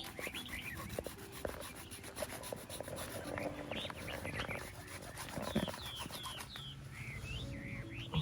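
Several small birds chirping repeatedly in quick rising and falling notes. Underneath are irregular rubbing and knocking sounds, the loudest knock about five and a half seconds in.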